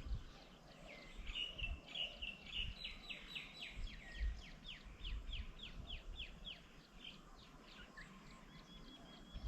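A bird calling a rapid series of short, falling notes, about three a second, that fades out after several seconds; a thin, high held note follows near the end.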